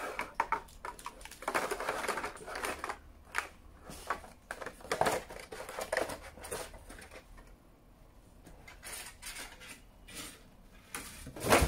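Clear plastic blister packaging being handled and pulled apart: crinkling, rustling and small clicks and knocks, irregular throughout, with a louder knock at the very end.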